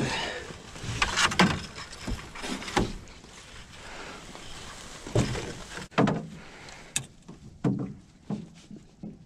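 Irregular knocks, thumps and rustles as a channel catfish and a landing net are handled on the floor of a boat. The handling is loudest in the first two seconds and thins to a few scattered knocks after about seven seconds.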